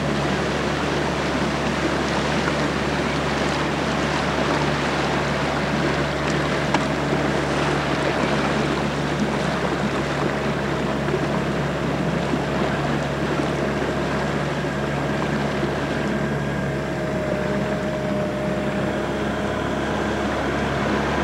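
Motorboat engine running at a steady speed, with water rushing past.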